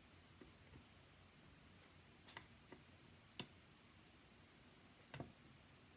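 Faint, scattered clicks of a lock pick and tension wrench working the pins inside a pin-tumbler challenge lock, about half a dozen in all, the sharpest about a third of the way in, near the middle and near the end.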